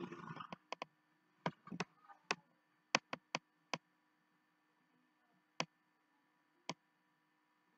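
Pencil and steel ruler on paper: a short scratchy pencil stroke at the start, then about a dozen sharp, irregular clicks and taps as the pencil and ruler are set down and moved, most of them in the first four seconds.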